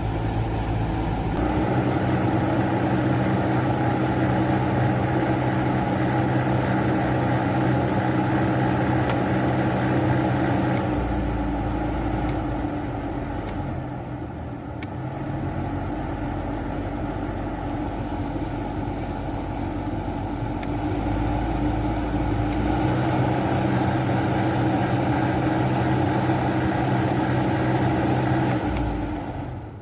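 Nissan Sunny's AC blower motor running at its highest speed with a steady droning vibration heard from the cabin over the idling engine. This is the noisy blower that a dirty fan can cause. The sound eases off for a while midway, returns, and falls away near the end.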